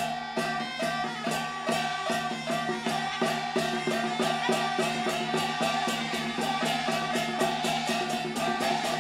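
Live accompaniment music for a Taiwanese glove-puppet show, led by percussion: a steady, fast beat of about three to four struck, ringing notes a second, with sharp clacks on top.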